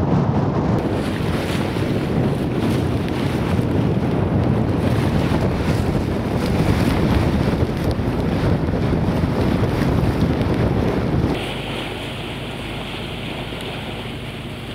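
Wind buffeting the microphone on the deck of a sailboat under way, over the rush of water. About eleven seconds in it drops abruptly to a quieter, steadier wash of water with a faint low hum.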